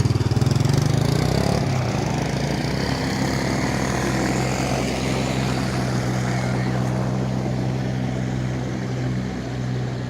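Agricultural spray drone's rotors running with a loud, steady low hum, pulsing at first and settling about a second and a half in.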